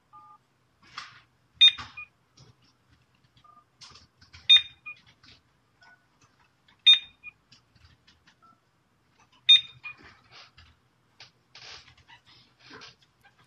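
Phone keypad tones entered during a call to a GSM10A alarm system to program its SMS alarm number. There are four key presses a few seconds apart, each a faint dial tone followed about a second later by a louder short beep.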